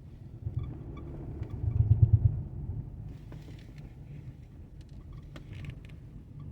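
A 2012 Dodge Durango driving, with a steady low rumble and a short run of low knocks about two seconds in: the knocking it makes when turning. The mechanic suspects something underneath is striking, possibly the driveshaft or a ball joint.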